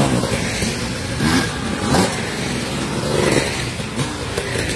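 Enduro dirt bike engines revving as riders pull away from the start line, with several short rises and falls in pitch.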